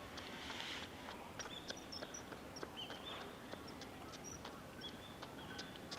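Small birds calling with many short, high chirps, several a second and irregular, over the steady hiss of flowing river water.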